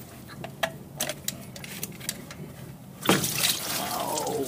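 Rubber upper radiator hose being twisted and worked off the thermostat housing outlet with small clicks and squeaks, then about three seconds in coolant suddenly gushing and splashing out of the hose, with a falling squeal near the end.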